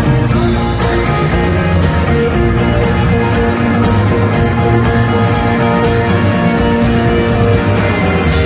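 Live rock band playing an instrumental passage: electric guitars over bass and drums with a steady beat.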